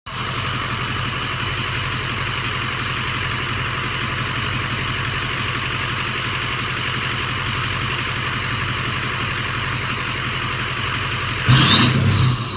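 Ford 6.0 Powerstroke V8 turbodiesel idling steadily. Near the end it is revved, and the turbo's whistle rises in pitch as the turbo spools up.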